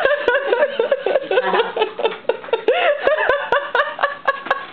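A person laughing hard in a rapid run of high, breathy giggles, with a few sharp clicks through it, most of them in the last second and a half.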